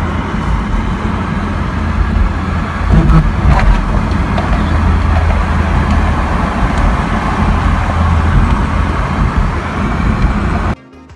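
Steady driving noise inside the cabin of a Chevrolet Camaro SS: engine, tyre and wind noise with a low rumble. It cuts off abruptly near the end, where music takes over.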